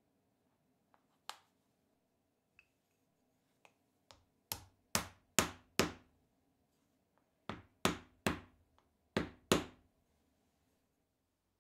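Small hammer tapping a plywood block to drive a hex nut into a hexagonal recess in a plywood crank handle: about ten sharp knocks in three quick bursts, after a few faint clicks of handling.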